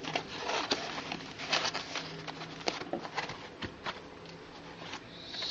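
Handling noise: scattered light taps, clicks and rustles of plastic puzzle cubes and their packaging being picked up and moved about.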